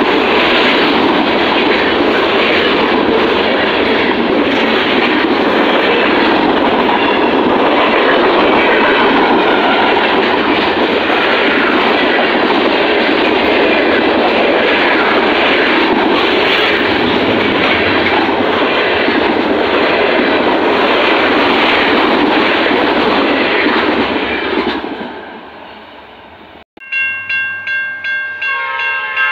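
Freight train cars rolling past close by, a loud steady rumble with rapid clacking of wheels over the rail joints, fading away after about 25 seconds. Near the end a grade-crossing bell rings, about three strokes a second.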